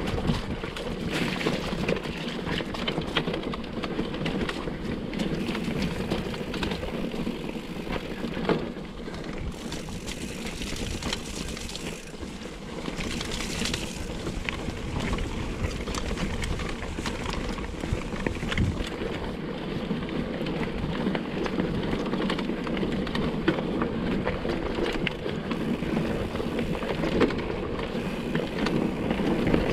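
Mountain bike riding down a rough trail: steady tyre noise with the bike rattling and a constant run of small knocks.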